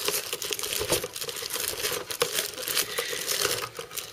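Plastic packaging bag crinkling and rustling continuously as hands work at it, untwisting a twist tie on the bagged tubing of a liquid cooler.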